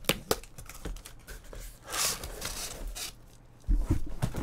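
Cardboard shipping case being opened by hand: a few sharp clicks, a rustling scrape of cardboard about two seconds in, then knocks and thumps as the case and boxes are handled near the end.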